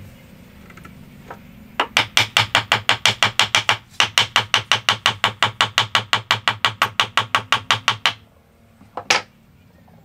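Rapid, evenly spaced knocks on a wooden joint, about seven a second, in two long runs with a brief break between them, then one last knock.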